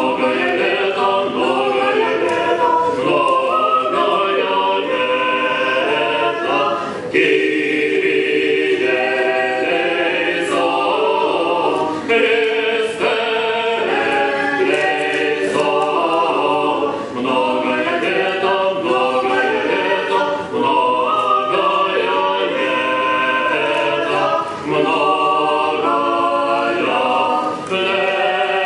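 Small church choir group singing unaccompanied in several voices, in sustained phrases with short breaks between them.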